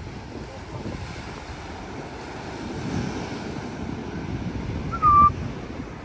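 Wind buffeting the microphone over surf washing onto a rocky shore. About five seconds in comes one short, clear whistle-like call, louder than the rest.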